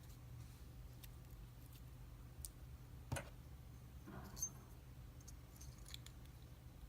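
Faint, sparse metallic clicks and taps as a shim is worked into a challenge padlock to free it for disassembly. The loudest click comes about three seconds in, another a second later, over a low steady hum.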